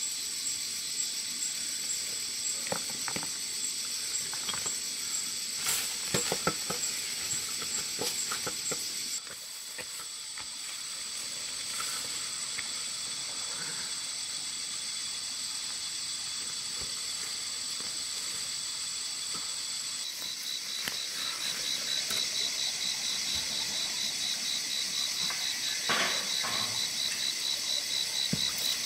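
Night insect chorus of crickets and katydids: steady high-pitched trills, joined about two-thirds of the way in by a fast, pulsing trill. Scattered rustles and knocks sound over it, mostly in the first third.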